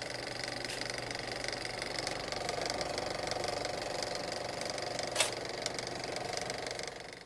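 Cine film projector running, a steady fast mechanical clatter, with one sharp click about five seconds in.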